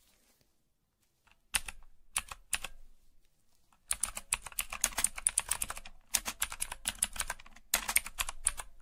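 Computer keyboard typing: near silence at first, a few short runs of keystrokes about one and a half seconds in, then fast, dense typing from about four seconds in.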